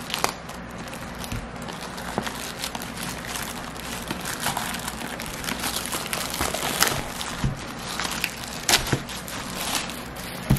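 Clear plastic shrink wrap on a boxed camera being slit with a utility knife, then torn and pulled off by hand, crinkling with many small crackles.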